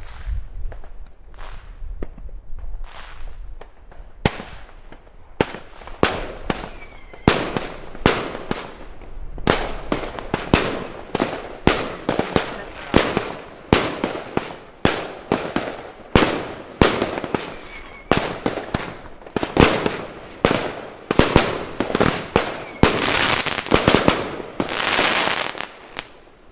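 A firework battery (cake) firing a fast series of shots, about one or two loud bangs a second, some with short whistles. Near the end the shots give way to a dense crackling finale before it stops.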